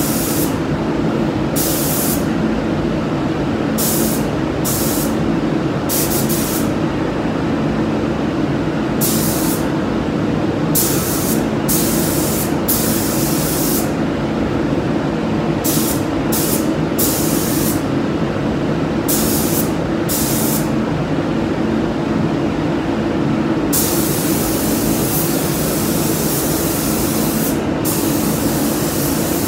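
Compressed-air spray gun hissing as it lays down a first coat of paint. It comes in a dozen or so short bursts of a second or less as the trigger is pulled and released, then runs almost continuously for the last six seconds. A steady low rumble from the spray booth's ventilation runs underneath.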